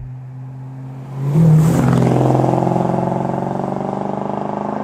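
1968 Dodge Charger R/T's 440 cubic-inch V8 engine revving up sharply about a second in, then running on loudly as the car drives.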